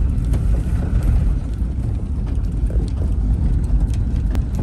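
Volkswagen bus camper running, heard from inside the cabin: a steady low rumble of engine and road noise. A sharp click near the end.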